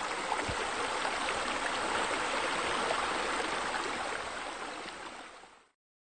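Running, splashing water, a steady rush that fades out near the end.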